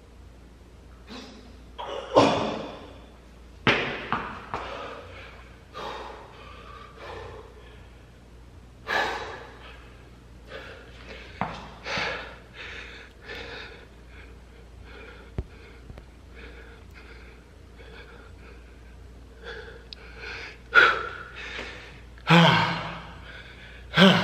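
A man breathing hard and gasping for air, out of breath from an exhausting run of push-ups and pull-ups. Loud, ragged breaths come irregularly every few seconds, heaviest near the start and again near the end.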